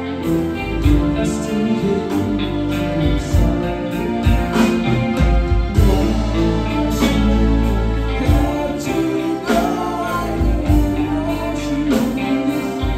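A live four-piece band playing a song: electric guitar, electric bass, Roland Juno keyboard and drum kit, with a man singing.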